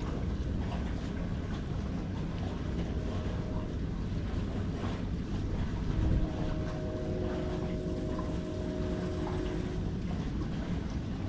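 Wind buffeting the microphone as a steady low rumble, with a faint steady hum of a few tones from about six to ten seconds in.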